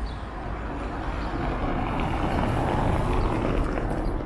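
A car's tyres rolling over cobblestones as it drives toward the camera, the noise swelling to its loudest about three seconds in and then easing.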